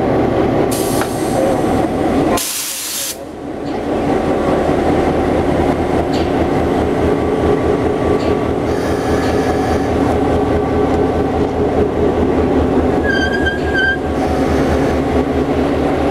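Diesel locomotive engine running as the locomotive rolls slowly past, a steady low rumble. About 13 seconds in, a brief high-pitched squeal rises over it.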